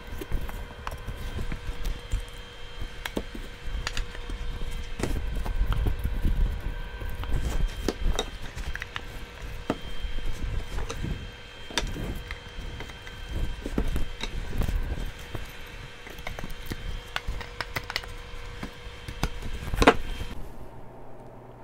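Cedar stiles and rails being handled and pushed together on a workbench: irregular wooden knocks, clacks and sliding, with the sharpest knock just before the end. A faint steady tone runs underneath.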